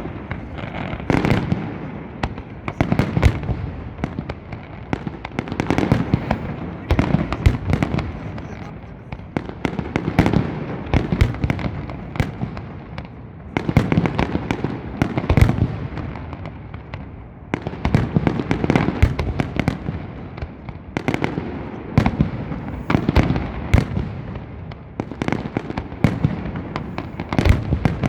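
Fireworks display: a dense, continuous barrage of firework bangs and crackles that swells in waves every few seconds.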